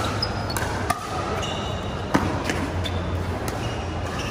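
Pickleball rally: paddles striking the hard plastic ball in a string of sharp pops, the loudest about two seconds in.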